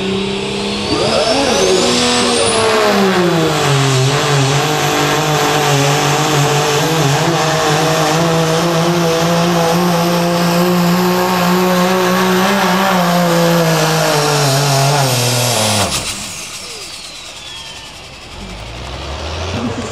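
Dodge Ram turbo-diesel pickup pulling a sled at full throttle: the engine runs hard under heavy load, with a high turbo whistle climbing over the first few seconds and then holding. The engine note sags as the load builds. About sixteen seconds in the throttle is lifted and the engine and whistle fall away together, leaving a much quieter engine.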